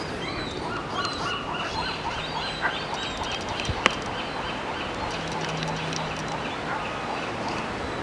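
Juvenile gull calling in a rapid series of short, high-pitched peeping notes, about four a second: the begging calls of a fledgling being hand-fed. A single sharp click comes near the middle.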